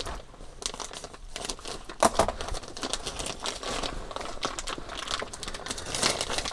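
Clear plastic parts bag crinkling as it is opened and handled, a run of sharp crackles, loudest about two seconds in and near the end.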